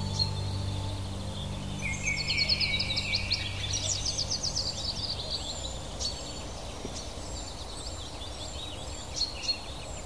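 Songbirds chirping and singing in a forest, with a fast, dense trill about two seconds in that lasts a couple of seconds. A low, soft sustained music chord fades away in the first couple of seconds.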